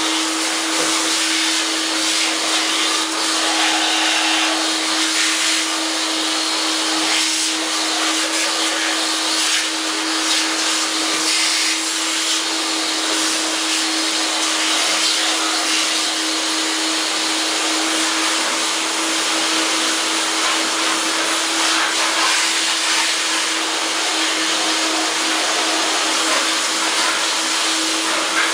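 A home-built lathe's electric motor running steadily: a constant hum under a loud, even hiss.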